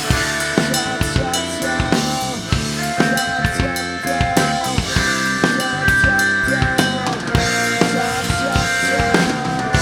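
Acoustic drum kit played along to a recorded rock backing track: kick drum, snare and cymbals in a busy, driving pattern of many strokes a second.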